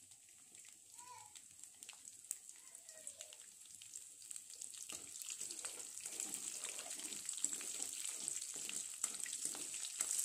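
Garlic cloves with mustard and cumin seeds frying in hot oil as a tempering. The sizzle is crackling and grows louder from about halfway through.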